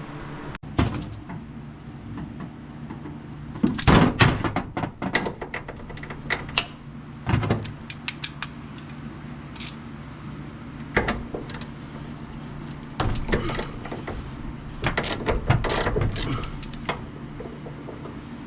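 Scattered metallic clanks, knocks and rattles of tools and a jack being worked under a truck door, over a steady low hum. The heaviest clatters come in bunches about four seconds in, again around seven seconds, and through most of the last third.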